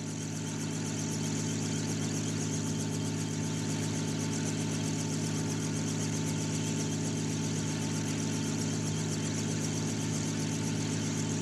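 Steady, unchanging drone of an aircraft's engine heard from on board, with a fine rapid pulsing over a low hum.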